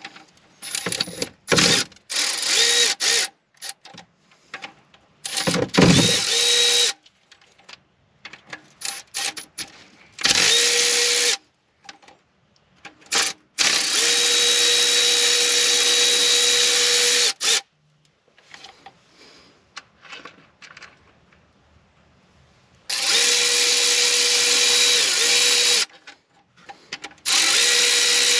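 Milwaukee M12 Fuel 3/8-inch cordless ratchet whirring in bursts as it spins out the 12 mm oil filter housing bolts. There are a few short blips and clicks in the first seconds, then longer steady runs of a few seconds each, with quiet gaps between.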